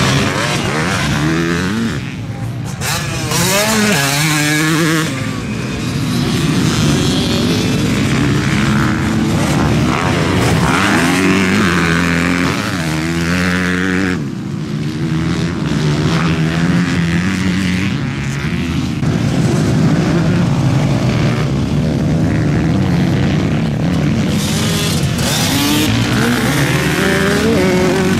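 Motor vehicle engines revving hard, their pitch rising and falling again and again, with more than one engine sounding at once at times.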